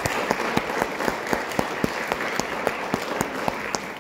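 Audience applauding, with one clapper close by standing out in a steady beat of about four claps a second.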